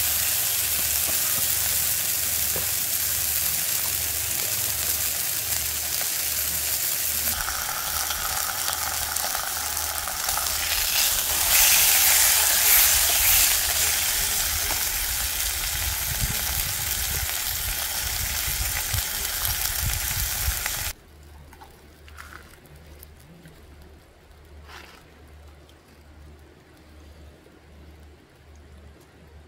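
Meat sizzling steadily in hot oil in a frying pan on a portable gas stove, getting louder for a few seconds when it is turned with tongs. About two-thirds of the way through the sizzling cuts off suddenly. A quieter stretch follows with a couple of faint knocks of a knife on a wooden cutting board.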